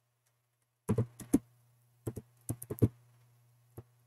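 Computer keyboard keystrokes: about four quick key presses about a second in, about six more between two and three seconds in, and a single one near the end. A faint steady low hum runs under them.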